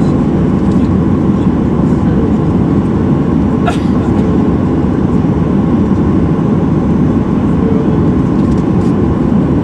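Steady low rumble of a Boeing 737-800's CFM56 engines at ground idle, heard inside the cabin from a window seat over the wing.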